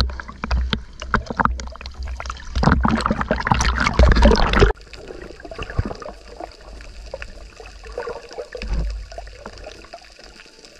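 Seawater splashing and sloshing at the surface, cutting off suddenly about halfway through and giving way to quieter, muffled underwater sound.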